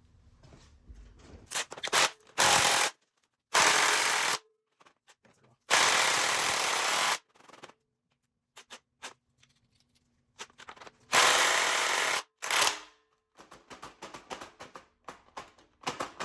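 Cordless impact wrench on a 19 mm socket hammering at the K24A4's crankshaft pulley bolt in several bursts of about one to one and a half seconds, with clicks and tool handling between them. The bolt does not break loose.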